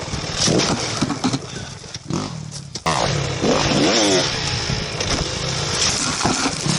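Dirt bike engines running and revving, in short clips cut together, with a rising and falling rev about three seconds in.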